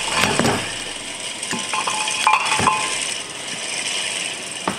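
Steel engine parts and a cylinder liner puller being handled on a workbench: a few metal knocks and clinks, with a brief metallic ring near the middle.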